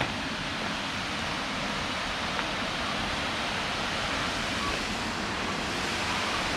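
Waterfall: a steady rush of falling water, growing slightly louder.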